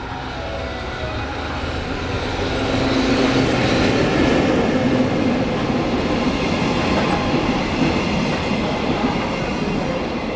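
EF65 electric locomotive and a string of empty flat wagons passing through a station: rumble and wheel clatter over the rails that build to a peak about three to five seconds in, then fade as the last wagons go by.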